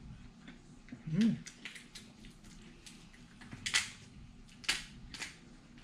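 Mukbang eating sounds: chewing and mouth clicks, a short hummed "mm" about a second in, and three louder smacks in the second half.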